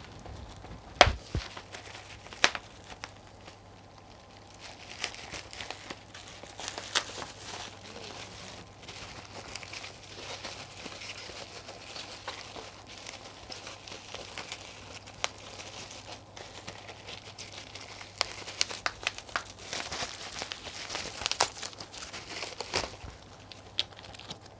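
Packaging being unwrapped and torn open by hand: crinkling and tearing, with a few sharp knocks, the loudest about a second in, and busier rustling near the end.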